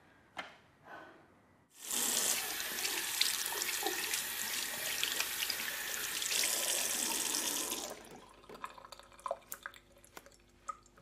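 Bathroom sink tap running, water splashing into the basin over hands being washed; it starts abruptly about two seconds in and cuts off about six seconds later. A few faint clicks follow near the end.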